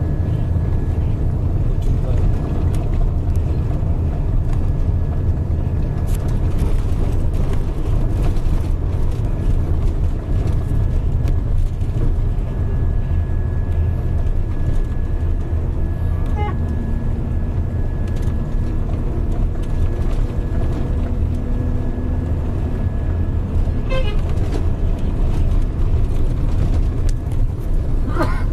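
Steady low rumble of a vehicle's engine and road noise, heard from inside the moving vehicle, with a faint steady whine over it for most of the time.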